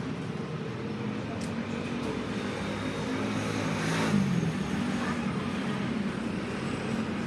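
Steady hum of motor vehicle engines and road traffic.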